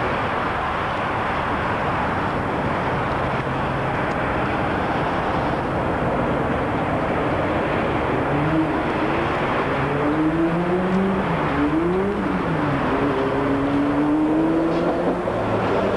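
Sydney W set electric train approaching over a steady rumble. About halfway through, the whine of its motors rises in pitch, swings down and back up as it draws near, and stays high as it passes close by.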